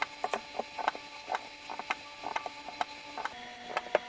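Spot welder firing on the cells of a DeWalt 20V battery pack: a rapid series of sharp clicks, irregularly spaced and a few per second, as the connection strips are welded onto the Samsung 30Q 18650 cells, over a steady low hum.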